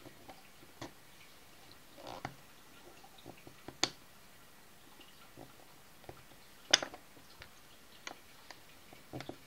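Small magnetic precision screwdriver working the tiny screws out of a Samsung Galaxy Note's plastic rear frame: scattered light clicks and scrapes of the bit on the screw heads and the frame, the sharpest about 4 s and 7 s in. The screws are stiff and hard to get out.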